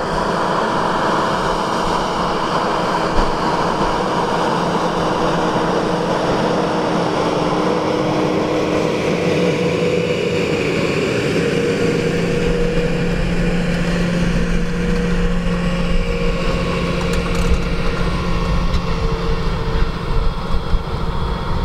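Large tractor's diesel engine running steadily under load as it pulls a tine harrow through the soil, with a steady drone whose tones drift slowly. It grows fuller and deeper about halfway through.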